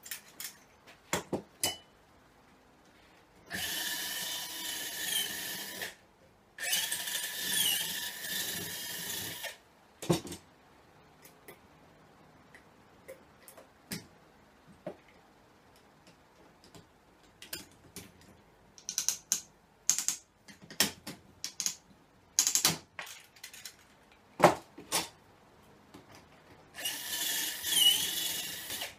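Power drill running in two bursts of a few seconds each, drilling rivet holes through the aluminium corner trim of a road case, and again near the end. Between the drill runs, a series of sharp clicks and snaps from a hand rivet gun setting pop rivets.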